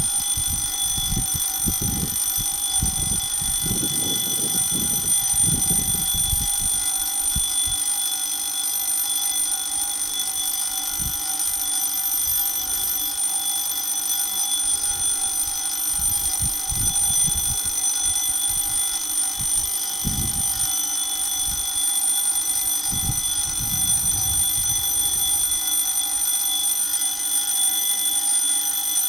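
Railway level-crossing warning alarm sounding: a steady electronic ringing tone that does not let up, the signal that a train is approaching the crossing.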